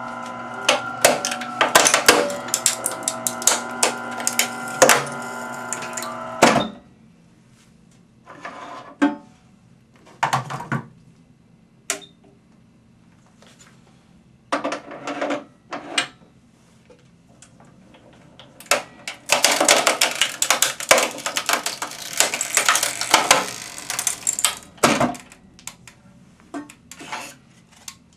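Proton PPD-2 hard drive destroyer running, a steady motor whine with crunching and cracking from the hard drive being crushed inside; it stops suddenly with a sharp clunk about six and a half seconds in. Scattered clicks and knocks follow as a drive is handled and fed into the slot, then about five seconds of dense rattling clatter near the end.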